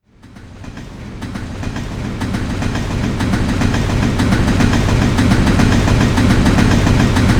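Train running on rails, a steady rumble with rapid clickety-clack from the wheels over the track. It starts suddenly and grows louder over the first few seconds, then holds steady.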